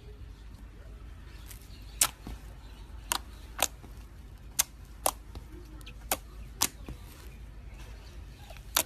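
Slime being squished and stretched, giving about eight sharp, irregular clicks and pops as air pockets burst.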